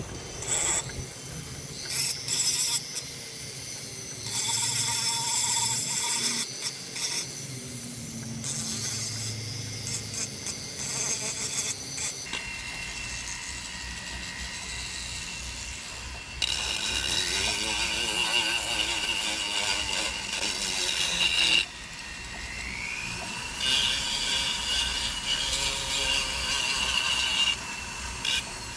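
Foredom flex-shaft rotary tool with a sanding drum, sanding a carved wooden fish body. Its high whine comes and goes in spurts as the drum works the wood, and it rises in pitch a couple of times.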